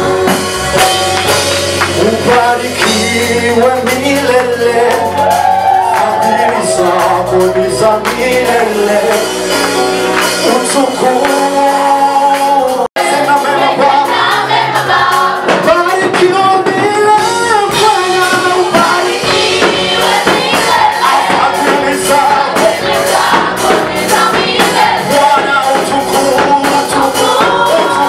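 Swahili gospel praise song sung by a group of voices over instrumental backing with a steady beat. The sound cuts out for an instant about halfway through.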